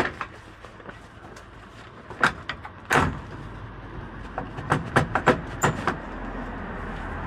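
Sharp metal knocks and clanks from parts of a welded metal roof cage being fitted and handled, with a quick run of several knocks about five seconds in. A steady rushing noise builds near the end.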